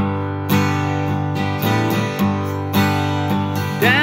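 Steel-string acoustic guitar strummed in a steady rhythm, a chord about every half second, playing a country song's intro. A man's singing voice comes in at the very end.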